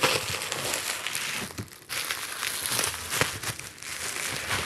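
Bubble wrap crinkling and rustling as a bubble-wrapped glass jug is lifted out of a cardboard box and handled, with a short lull about a second and a half in.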